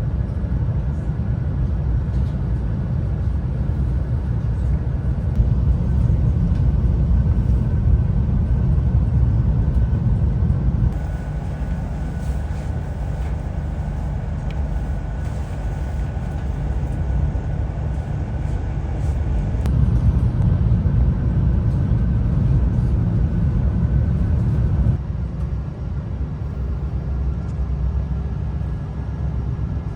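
Steady low rumble from inside a moving vehicle, in several stretches that change abruptly about 11, 20 and 25 seconds in.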